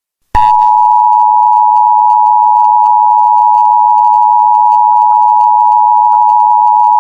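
Emergency Alert System attention signal: the steady two-tone alarm (853 and 960 Hz sounded together) comes on sharply about a third of a second in and holds unbroken, loud. It marks the start of an emergency alert, between the data header and the spoken message.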